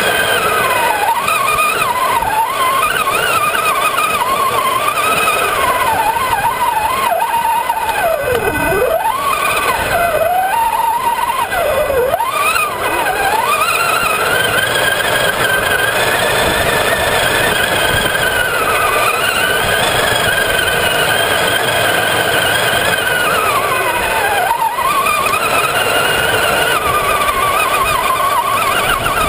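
Traxxas Summit RC truck's electric motor and geartrain whining as it drives over sand. The pitch climbs and drops with the throttle, with sharp dips about 8 and 12 seconds in and again near 25 seconds.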